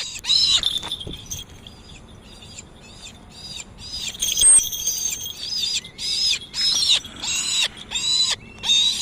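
Brahminy kite calling: a run of short, high, mewing notes repeated about twice a second, softer for a few seconds in the middle and louder again in the second half.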